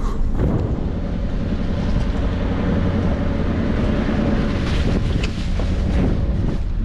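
A 4x4's 5.9-litre engine running steadily under load, climbing a steep, rough dirt track, with wind buffeting the microphone. A few short knocks come through between about four and six seconds in.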